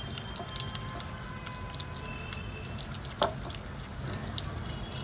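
Silicone spatula stirring a wet marinade of oil, ginger-garlic paste and spices in a glass bowl: soft squishing with scattered light clicks against the glass, over a low steady hum.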